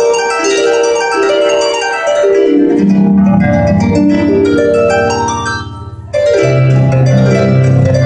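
Paraguayan harp playing a fast piece: quick plucked notes high up, then a run falling into the bass about two seconds in and climbing back up. Just before six seconds the sound drops briefly, then comes back strongly with deep bass notes under the melody.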